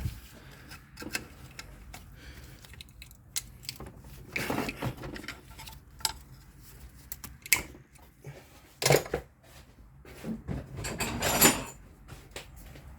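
Hand tools clinking and knocking on metal while a mechanic works at the plastic cap and nut of a seized idler pulley. The engine is not running. There are irregular short clicks and clanks, with the loudest around 9 s in and a brief scraping stretch around 11 s in.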